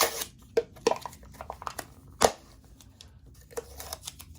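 Supplement container being handled and opened by hand: a run of sharp plastic clicks and crinkles of packaging, the loudest click about two seconds in.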